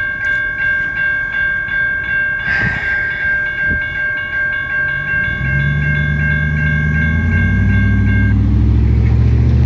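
Railroad grade-crossing bell ringing at about two strokes a second, then stopping about eight seconds in as the crossing gate arm rises after the train has cleared. From about five seconds in, a pickup truck's engine climbs in pitch as it pulls away across the tracks and becomes the loudest sound near the end.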